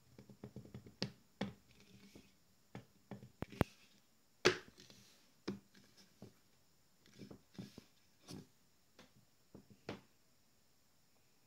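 Handling noise from a wooden vase frame holding a glass jar as it is turned over in the hands and set on a bench: scattered faint knocks and clicks, the loudest about four and a half seconds in.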